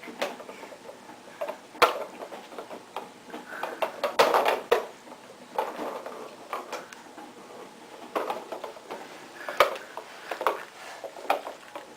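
Irregular light knocks, clicks and short scraping or rubbing noises of small hard objects being handled and moved about, a few sharp taps standing out.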